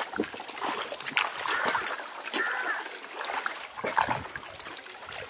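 Irregular splashing and dripping of shallow water as a cast net is hauled in by hand.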